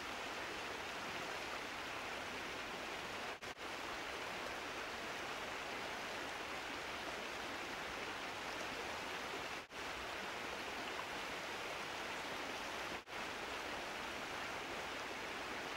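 Steady, even hiss with no distinct events, cutting out for an instant a few times: twice at about three and a half seconds in, then at about ten and thirteen seconds.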